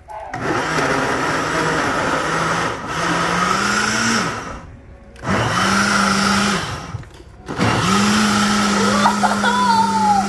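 Countertop blender running in three bursts with two short stops between them, blending fruit, ice cream and milk into a shake. Its motor pitch climbs each time it spins up.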